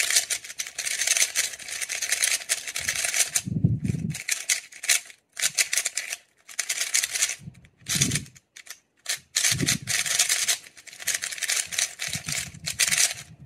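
Plastic clicking and rattling of a MoYu RS3M Maglev ball-core speed cube being turned fast by hand, in quick runs of turns broken by short pauses. The cube is still dry, not yet lubricated.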